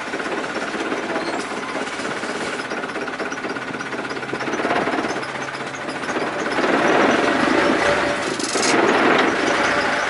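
Canal passenger boat's unmuffled inboard engine running with a fast, rattling drone. It gets louder about two-thirds of the way in as the boat is brought alongside the landing.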